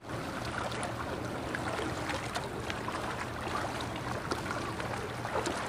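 Shallow seawater lapping and trickling around rocks, with many small splashes and ticks. A low steady hum runs underneath.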